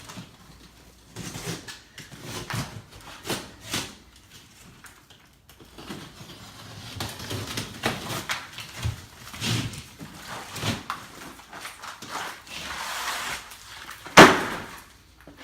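Wall demolition by hand: a run of knocks, scrapes and cracks as wall material is worked loose and pulled off, with one loud bang about 14 seconds in.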